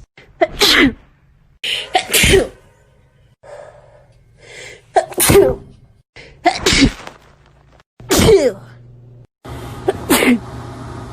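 About six human sneezes in a row from different people, each a short, loud burst with a falling pitch.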